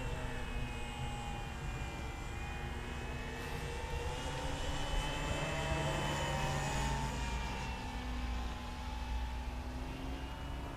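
Engine and propeller of a Hangar-9 Funtana S90 radio-controlled aerobatic model plane droning overhead in flight, the pitch dropping at the start, then slowly rising and falling as it flies its manoeuvres.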